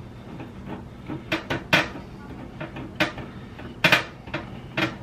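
Sharp metal clicks and clinks from a screwdriver driving the screws that fasten a new bake element to the back wall of a GE oven's cavity. There are about seven irregular clicks, two in quick succession near four seconds in.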